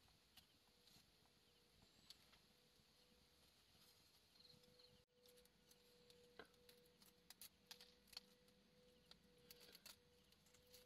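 Near silence: faint background hiss with a faint steady hum and a scattered few soft ticks, briefly dropping out about halfway through.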